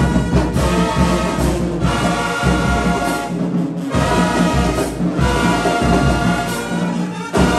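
Marching band brass section playing loud sustained chords, with trumpets, trombones, saxophones and sousaphones over bass drum and low brass. It plays in phrases with short breaks and ends on a sharp accented hit near the end.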